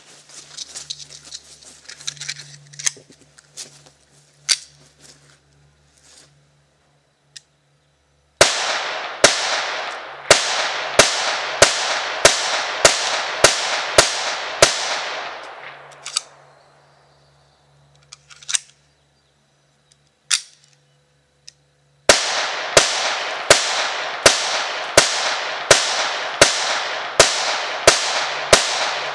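Ruger Mark III .22 semi-automatic pistol fired rapidly in two strings of about a dozen shots each, roughly two shots a second. The first string starts about eight seconds in and the second about twenty-two seconds in. A few light clicks of gun handling come before the first string.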